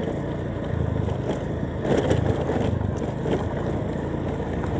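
Motorcycle engine running steadily as the bike rides along, mixed with road noise, with a brief louder rush of noise about two seconds in.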